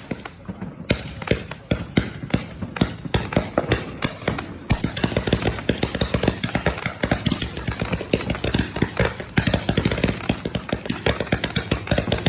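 Fireworks crackling: a rapid, irregular run of sharp pops and cracks, growing denser about five seconds in.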